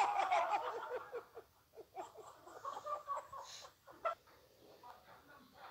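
High-pitched human shrieks or squeals with rapidly wavering pitch, loudest in the first second, then shorter choppy outbursts about two to three seconds in and a couple of sharp knocks near four seconds.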